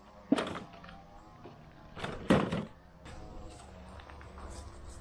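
Recoil starter of a Briggs & Stratton 125cc lawnmower engine yanked twice, each pull a short sudden burst, with a low steady hum after the second pull as the engine tries to catch.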